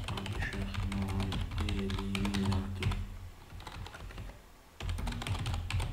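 Computer keyboard typing in quick runs of keystrokes, pausing briefly about four seconds in before starting again.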